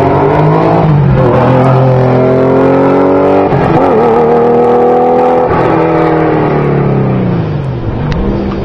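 Porsche 911 race car accelerating hard up the hill-climb road, its engine note climbing through gears with upshifts about a second and three and a half seconds in. It then drops in pitch as the car draws away.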